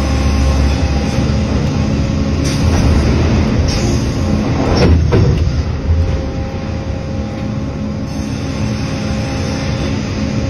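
Cleereman band sawmill running: a steady machine hum and rumble as the log carriage carries a white oak log into the band saw blade, which cuts it and throws sawdust. It gets louder about four to five seconds in, with a brief falling sweep.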